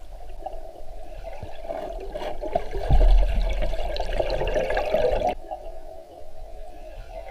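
Water gurgling and rushing, with a steady muffled churn that swells into a louder rush about two and a half seconds in and cuts off suddenly a few seconds later.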